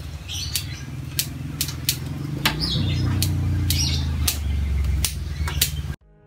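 Small pruning scissors snipping twigs of a Fukien tea (Carmona retusa) bonsai: sharp clicks at an uneven pace, roughly one every half second, over a low steady rumble. The sound cuts off abruptly near the end.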